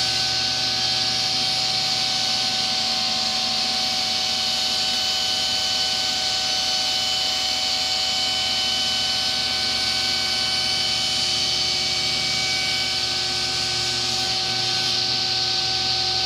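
Shop-built wooden table saw running with a steady whine, its spinning blade cutting through a wooden board.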